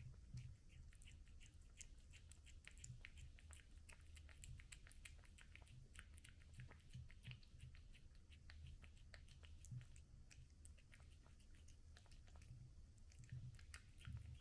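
A cat chewing and eating food: faint, irregular little clicks and crunches, several a second, over a low steady hum.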